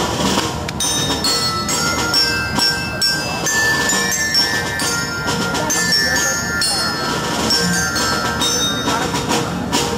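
Live percussion music: many bells and chimes ringing over a steady layer of hand drumming.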